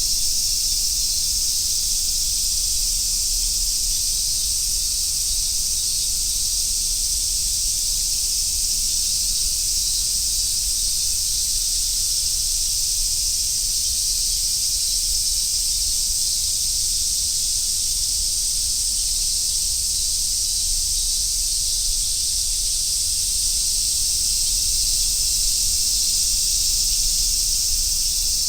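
Chorus of Japanese summer cicadas, large brown cicadas (abura-zemi) and robust cicadas (minmin-zemi) among them, singing together as one steady, dense high-pitched hiss.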